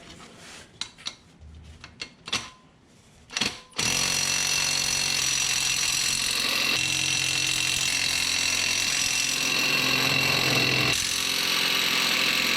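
A few clicks and knocks, then an impact wrench hammering steadily for about nine seconds on the flywheel bolts without breaking them loose, short of the rated 200-odd foot-pounds of torque. It stops just before the end.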